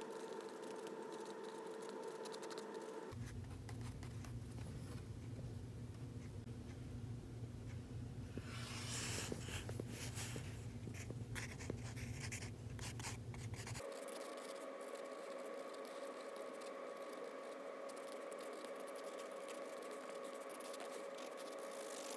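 Mechanical pencil scratching on sketchbook paper in short drawing strokes, thickest about halfway through. Under it runs a steady background hum that shifts in pitch twice.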